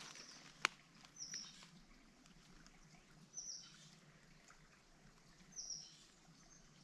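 A bird calling faintly three times, each a short high note sliding downward, about two seconds apart. A single sharp click sounds a little over half a second in.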